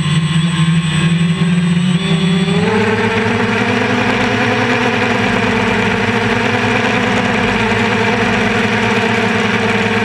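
DJI Phantom quadcopter's electric motors and propellers buzzing steadily, picked up close by the GoPro riding on the drone. About three seconds in, the buzz steps up in pitch as the motors speed up, and it holds there.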